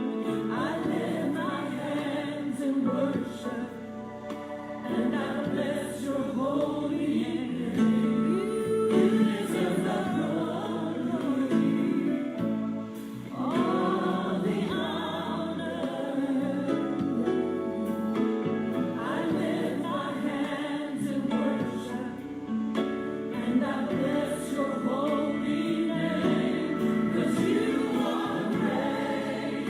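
A choir singing a gospel worship song with music behind it.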